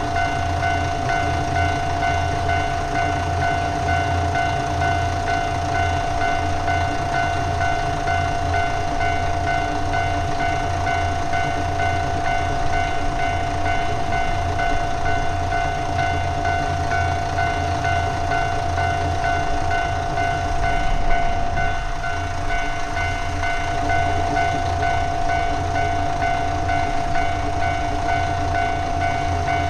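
Japanese level-crossing alarm ringing on and on in a steady pitched repeating tone, over the low running of a diesel train. A train stopped at the station beside the crossing holds it closed, so the alarm does not stop.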